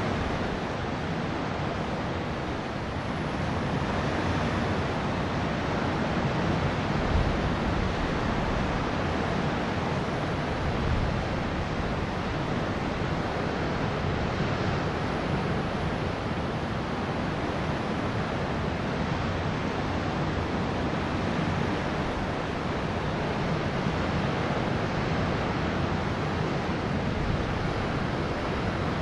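Steady rush of open sea and wind, with wind buffeting the microphone.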